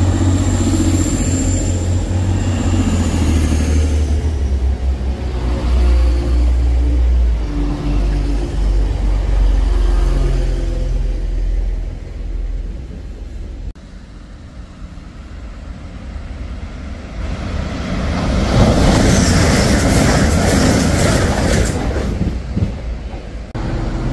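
Railway trains at a station platform: a deep, steady engine rumble for the first half that fades away about halfway through, then a loud rushing noise of a train going by for a few seconds, followed by a steady drone near the end.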